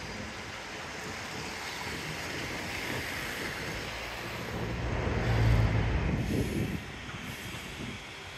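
Street traffic noise with a motor vehicle's engine hum growing louder about four seconds in, passing most loudly around five and a half seconds, then falling away sharply.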